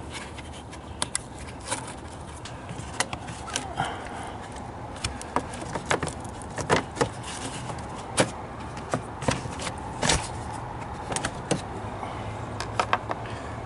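Irregular clicks, taps and knocks of hard plastic as the BMW E46's cabin microfilter housing and cowl cover are handled and worked loose by hand, over a steady low background noise.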